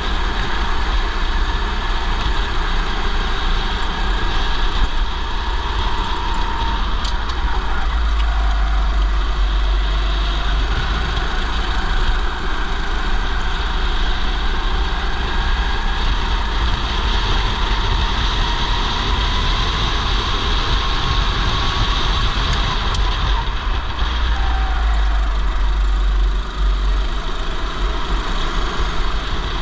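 Kart engine running under the driver during a race, its pitch rising and falling slowly with speed between corners and straights. Heavy wind rumble on a helmet-mounted camera microphone runs under it.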